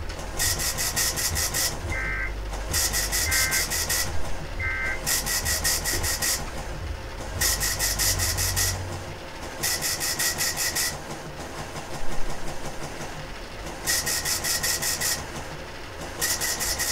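EAS end-of-message signal: three short bursts of digital data tones about a second and a half apart, starting about two seconds in. Around them, bursts of harsh static-like hiss, each about a second long, come and go.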